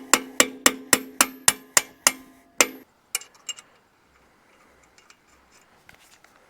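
Hammer blows on steel, about four a second, each ringing; they stop about two and a half seconds in. A few faint clicks follow.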